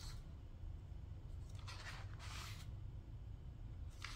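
Paper pages of a spiral-bound book being turned by hand: a soft swish about two seconds in and another near the end.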